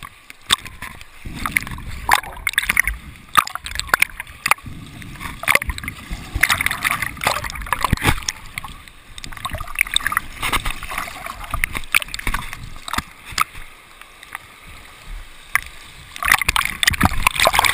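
River water splashing and gurgling around a camera held at the surface of a fast-flowing river, with frequent sharp slaps of water against it.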